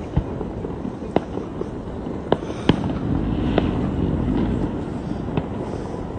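Distant fireworks display: about half a dozen sharp bangs at irregular intervals, a second or so apart, over steady background noise that swells in the middle.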